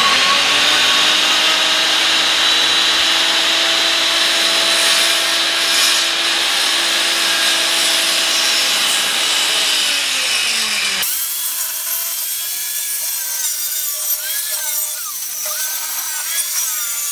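Corded circular saw spinning up with a rising whine, then running with a steady whine as it cuts into plywood, the pitch sagging about ten seconds in. After an abrupt change the saw's whine wavers up and down as it is pushed along the cut.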